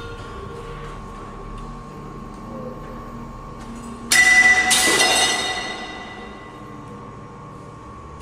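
A sudden loud metallic crash about four seconds in, with a second hit just after, ringing and dying away over a couple of seconds: a length of metal framing clattering against the glass partition. Underneath is a faint steady hum.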